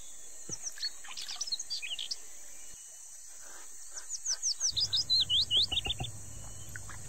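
Wild birds chirping, with a quick run of loud sliding whistled notes about four seconds in, over a steady high-pitched insect drone.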